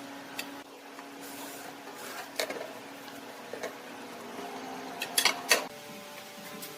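Woodturning lathe's motor humming steadily, with scattered light clicks and knocks, the loudest two about five seconds in; just after them the hum changes to a new steady tone.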